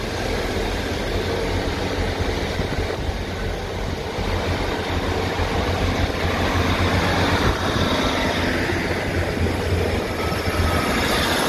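Class 150 Sprinter diesel multiple unit running into the platform past the listener, its diesel engines and wheels on the rails making a steady low drone.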